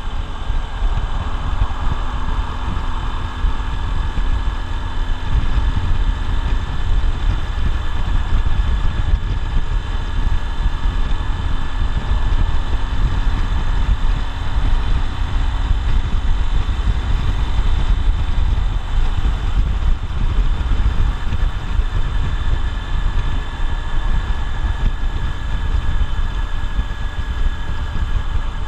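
Honda XR150L's air-cooled single-cylinder four-stroke engine running steadily while riding, with wind rumbling heavily on the helmet-mounted microphone.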